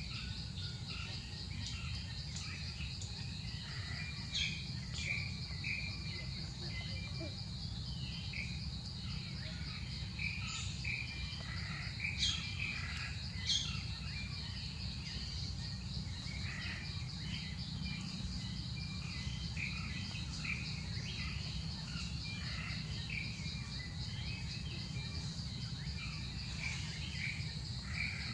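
Outdoor ambience: a steady, rapidly pulsing insect trill with many short bird chirps scattered over it, above a low steady rumble.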